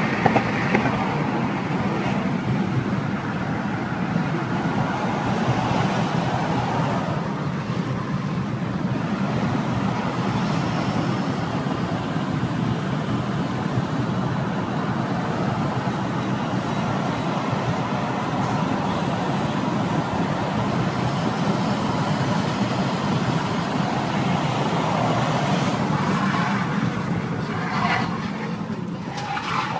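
Steady road and engine noise of a car driving, with a few short knocks near the end.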